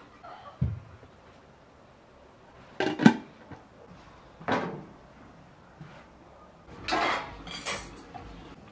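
Metal cookware clanking in a few separate knocks and clatters: an aluminium pot and its lid being handled and set down on a metal-topped stove. The loudest clank comes about three seconds in.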